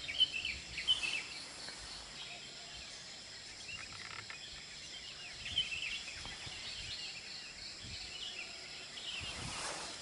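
Wild birds on a forested mountainside chirping in short, scattered calls, with a steady high-pitched insect drone underneath.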